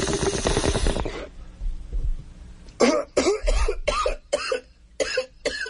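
Bong-hit sound effect: water bubbling through a bong, stopping about a second in, then a person coughing about half a dozen times.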